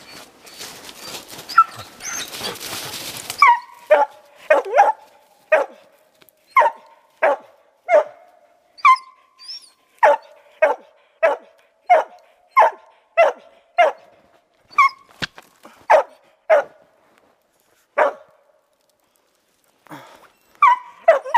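Laika barking steadily up into a tree, about one and a half barks a second, baying at a squirrel it has treed. A rustle of brush comes before the barking starts, and there is a short pause in the barking near the end.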